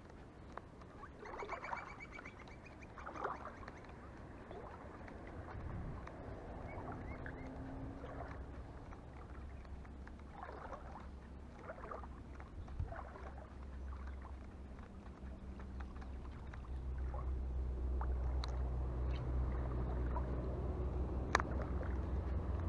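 Outdoor waterside ambience: a low wind rumble on the microphone that grows stronger about 17 seconds in, with faint scattered sounds and a single sharp click near the end.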